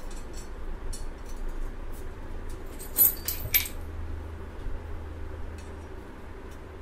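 Small metallic clicks and clinks as a screw is turned by hand into the hub of a cast-iron sewing-machine treadle-stand flywheel, with a sharper clink about three seconds in and another just after.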